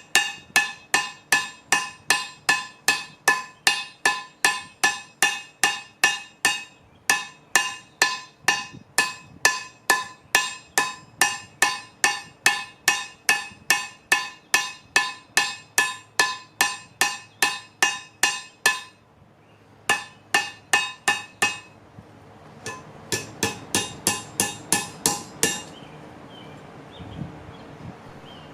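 Blacksmith's hammer striking steel on a railroad-track anvil, about three ringing blows a second with a few short pauses. A last quick run of blows stops about three-quarters of the way through.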